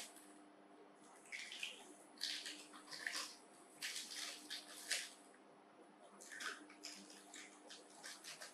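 Faint, short crackling crunches of dry instant noodles being broken up and chewed, in a run of bursts with brief pauses.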